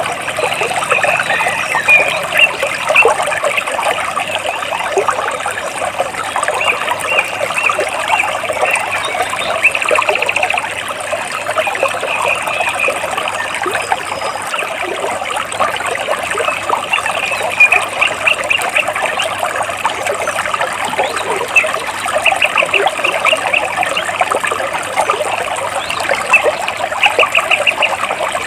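Water splashing and trickling steadily over and between rocks. Several times a short, rapid ticking trill sounds above it.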